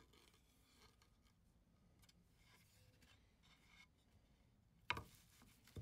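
Near silence, with faint rubbing as a planed white oak raised panel is handled and turned on the bench. A single short knock comes about five seconds in.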